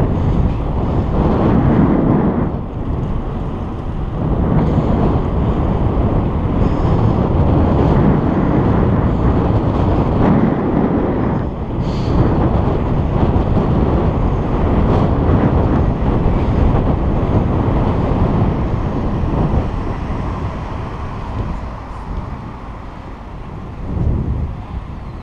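Wind buffeting the GoPro's microphone while cycling, a loud, gusty rumble mixed with tyre and road noise. There is one sharp click about halfway through, and the rumble eases off near the end.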